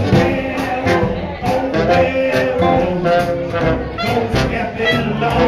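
A swing band playing, with horns carrying the tune over a steady beat.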